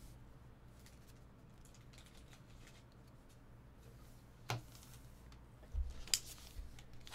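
Quiet handling of trading cards and packs: a few light clicks and rustles, one about four and a half seconds in and a small cluster near six seconds, over a steady low hum.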